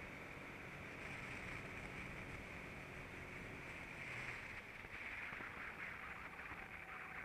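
Go-kart running on track, heard from on board: a steady hiss of wind and driving noise over a low engine drone, with no clear rise or fall in revs.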